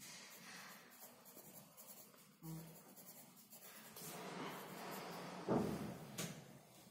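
Pencil writing on paper in short strokes, louder in the second half, with a soft thump about five and a half seconds in and a light click soon after.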